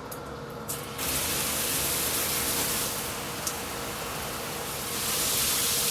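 Spray from a chrome handheld shower head comes on strongly about a second in, a loud, even hiss of water. It eases off around three seconds in and comes back to full near the end, as the spray is turned down and up with the head's pause switch.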